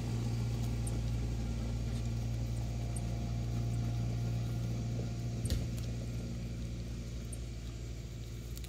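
A steady low mechanical hum, like a motor or engine running, with a few faint ticks and a single short knock about five and a half seconds in.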